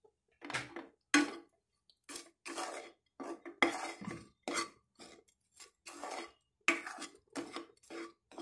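A spatula stirring and scraping cooked rice around a pan in quick repeated strokes, about two to three a second, mixing salt into beetroot rice.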